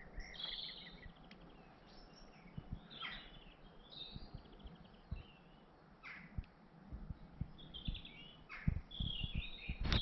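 Several songbirds singing in woodland, with short chirps and quick trills coming in clusters. The birds are busiest just after the start, again about three to four seconds in, and most densely near the end. Soft, irregular low thumps run underneath.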